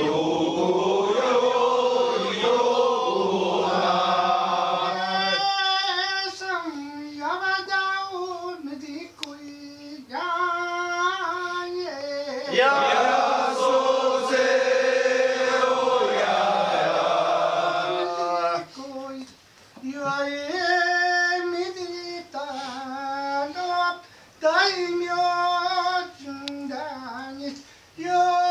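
Kiyari, a Japanese traditional ceremonial work chant sung in call and response. A group of voices sings together at the start, then a lead singer takes long, drawn-out lines with wavering pitch bends. The group joins in again about halfway, and near the end the lead voice sings shorter phrases with brief pauses between them.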